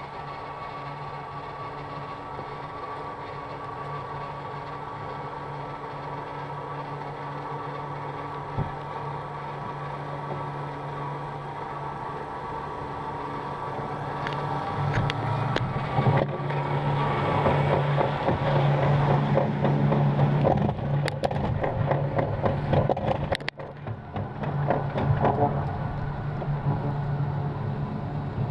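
Roll-bob alpine coaster sled being carried slowly along its steel rail into the lift section, with a steady mechanical hum of the lift drive. About halfway through the sound grows louder, with dense rattling and clicking as the sled is pulled up the lift hill.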